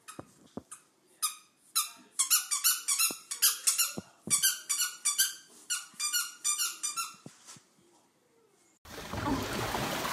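A dog's squeaky toy squeaked over and over while a dachshund puppy chews it: a few scattered high squeaks, then a fast run of squeaks for several seconds. Near the end this gives way to wind and surf at a shoreline.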